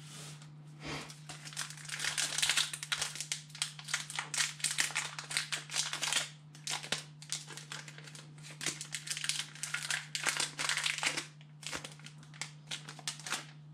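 Foil wrapper of a Pokémon TCG booster pack crinkling and rustling in irregular bursts as it is opened and handled.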